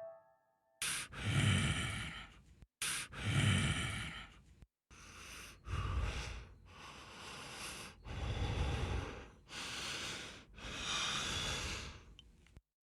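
Creepy heavy-breathing sound effect: a series of about eight slow, noisy breaths in and out, each a second or two long, the first two longer and separated by short gaps.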